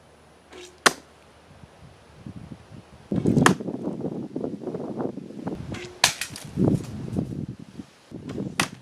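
Arrows being shot from a takedown survival bow: four sharp snaps about two and a half seconds apart. Rustling and wind noise on the microphone join from about three seconds in.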